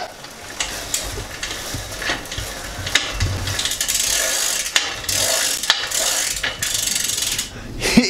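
Bicycle drivetrain ticking and ratcheting in a rapid run of clicks as the tandem's chain, freshly joined with a BMX chain link, is run over its sprockets by hand.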